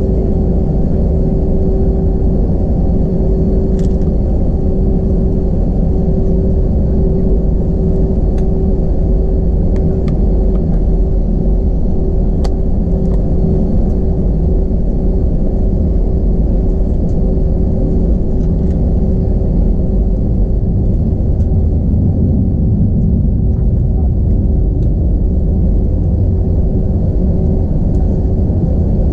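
Cabin noise of an Airbus A321 taxiing, heard from a seat behind the wing: its IAE V2500 engines run at taxi power under a steady low rumble with a constant hum.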